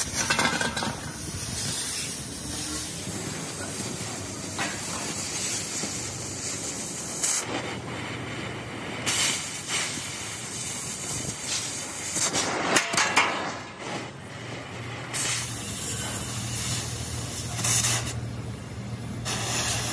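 Oxy-fuel cutting torch hissing steadily as it cuts through the sheet-steel edge of a truck bumper, with a few louder surges of hiss, the biggest about two-thirds of the way through.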